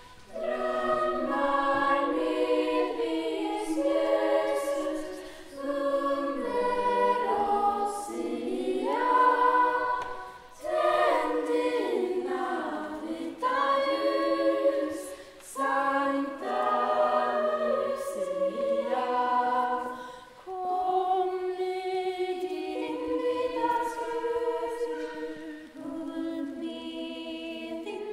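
A young choir, mostly girls' voices, singing a Lucia procession song in sustained phrases, with short breath pauses between them.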